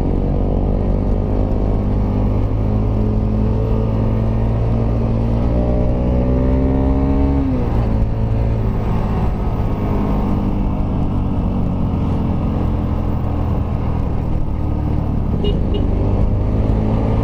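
Kawasaki Rouser RS200's single-cylinder engine running without its exhaust canister, under way on the road: the engine note climbs steadily, drops abruptly about seven and a half seconds in as it shifts up a gear, then holds and rises slowly again.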